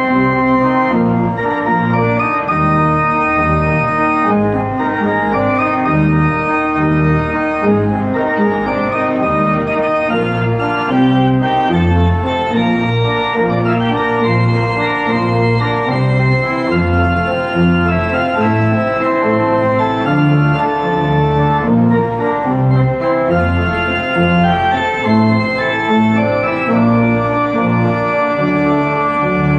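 Three-manual church organ playing a lively piece: full sustained chords over a bass line that steps to a new note every half second or so.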